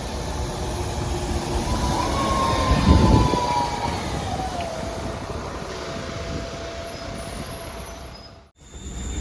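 Arriva Midlands single-decker bus pulling in, its engine and tyres running under a high turbo whistle that falls in pitch as the bus slows, then holds steady. A louder low rumble comes about three seconds in, and the sound cuts out briefly near the end.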